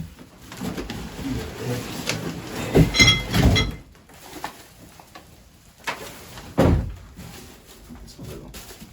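A heavy boxed wood lathe being lifted and set onto a table: knocks and bumps of the box, with a short high squeak about three seconds in and a heavy thump near seven seconds.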